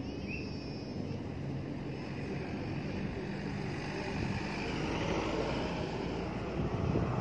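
Outdoor ambient noise: a steady low rumble with a faint hum in it, swelling a little after the middle, with a brief high chirp near the start.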